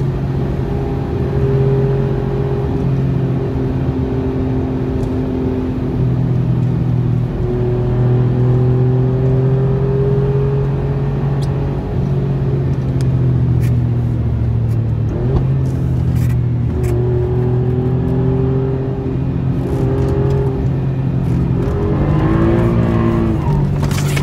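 Alfa Romeo Giulia Quadrifoglio's 2.9-litre twin-turbo V6 heard from inside the cabin under way on track, holding a steady pitch along the straight with a few shifts in pitch. Near the end the pitch rises and falls quickly as the car slows for a corner.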